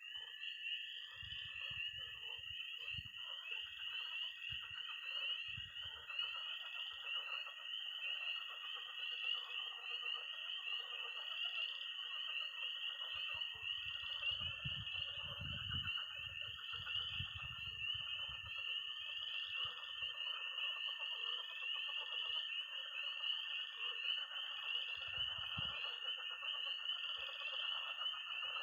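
Night chorus of early-spring frogs and toads: peeping tree frogs in a dense, continuous high peeping, a long steady high-pitched toad trill, and lower frog croaking beneath. Occasional low bumps, heaviest in the middle.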